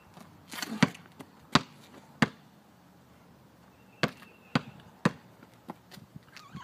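Basketball dribbled on a concrete driveway: three sharp bounces about two-thirds of a second apart, a short pause, then three more about half a second apart, and a couple of fainter ones near the end.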